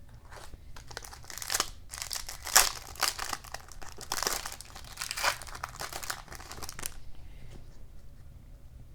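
Hockey card pack wrapper crinkling and tearing as it is opened, a dense run of crackles for about seven seconds, then quieter handling.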